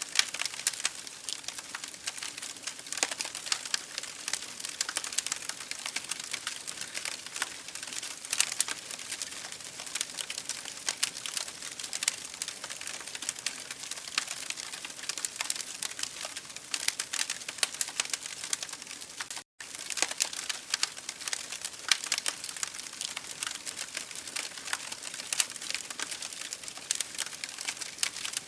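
Wood fire burning in an open fireplace, crackling and popping steadily over a soft hiss. A split-second dropout cuts the sound about two-thirds of the way through.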